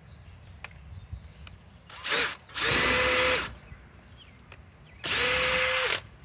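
DeWalt cordless power driver running in three short spells, driving screws into an OSB board: a brief burst about two seconds in, a longer run right after, and another about five seconds in. Each run has a steady motor whine.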